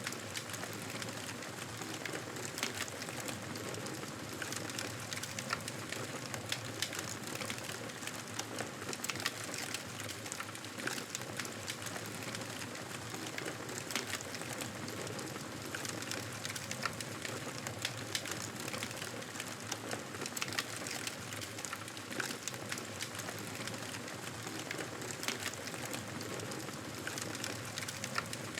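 Wood fire crackling in a fireplace: a steady hiss dotted with irregular sharp pops and snaps.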